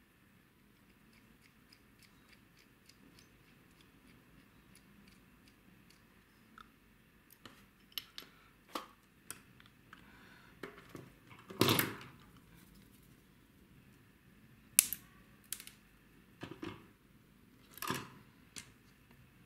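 Small parts and tools being handled during assembly of a mini RC car: faint ticks at first, then scattered sharp clicks and taps, with a louder short clatter about twelve seconds in.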